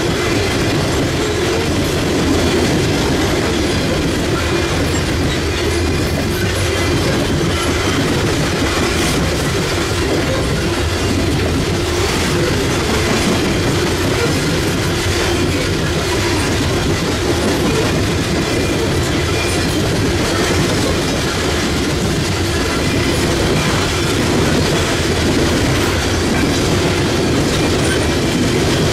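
Loaded coal hopper cars of a freight train rolling steadily past on the rails: continuous wheel-on-rail noise with a few clicks of wheels over rail joints.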